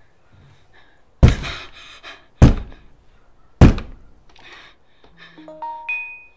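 Three heavy knocks pounding on a front door, about a second apart, followed near the end by a doorbell chime whose few notes step up in pitch.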